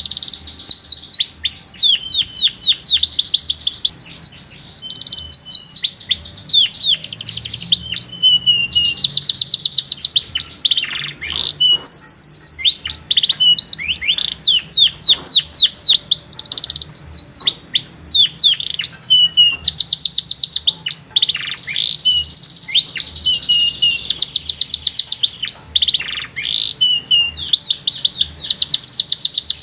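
Domestic canary singing a strong, continuous song of rapid trills, each a fast run of repeated notes, broken every few seconds by quick downward-swooping notes.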